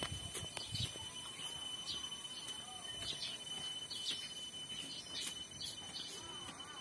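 Small birds chirping in quick, short falling notes, scattered irregularly, over a steady thin high-pitched tone.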